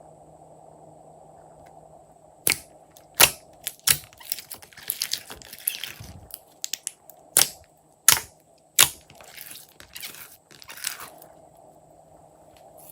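A series of sharp crunches and snaps from handling slime-making materials, several loud ones half a second to a second apart, with stretches of crackling in between.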